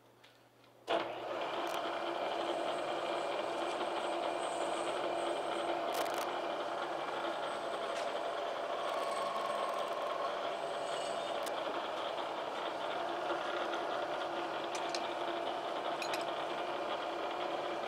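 Bridgeport milling machine's spindle switched on about a second in and running steadily, with a few sharp clicks, as a centre drill is fed down to chamfer a hole in a bronze casting.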